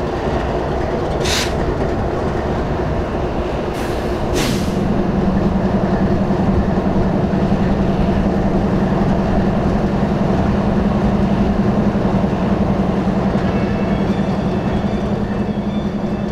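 BNSF diesel-electric locomotives standing and running, a steady engine rumble. About four and a half seconds in a steady low hum sets in and holds. A few brief hissing bursts come around one and four seconds in.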